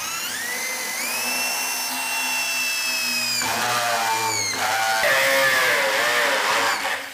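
Bosch corded electric drill running a titanium step (cone) drill bit into rusty iron sheet. The motor whine rises as it spins up, holds steady, then drops and wavers in pitch through the second half before stopping near the end.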